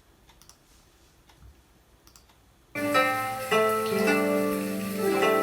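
Near silence with a few faint clicks, then about three seconds in an instrumental music track starts abruptly, with held keyboard notes.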